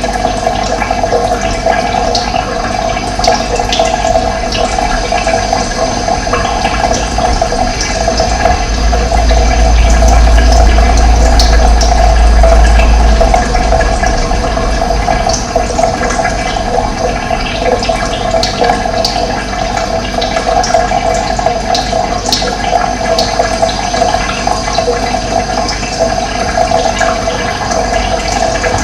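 Running water, a steady rush, with scattered faint high bird chirps. A low rumble swells from about eight seconds in and fades by about thirteen seconds.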